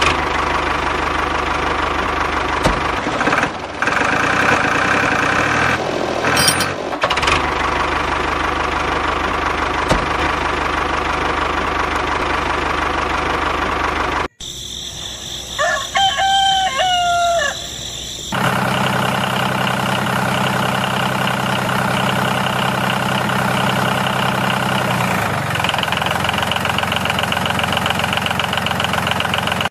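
Steady whirring hum of a homemade toy tractor's small corded electric motor running, in two stretches split by a cut. In the quieter gap between them, about halfway through, a rooster crows once.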